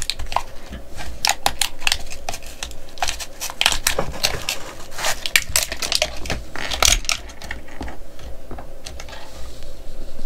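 Small plastic wheels and rubber tyres of a scale-model car kit being handled and fitted together: a rapid, irregular clatter of clicks and taps that thins out in the last few seconds.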